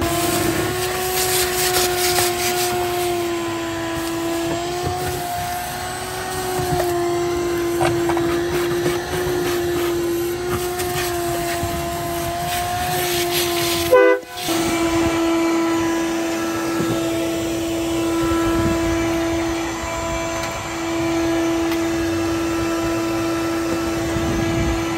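Shop vacuum running with a steady high whine that wavers slightly in pitch as the nozzle works the cab floor, with bouts of hiss and rattle as debris is sucked up. The sound cuts out for an instant about halfway through.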